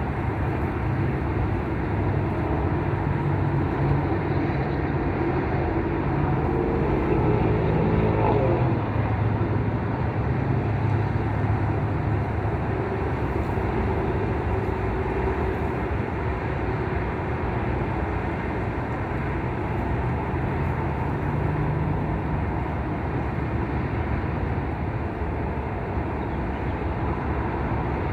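Steady road traffic: engines hum and fade as vehicles pass, one passing loudest about eight seconds in, its pitch dropping as it goes by.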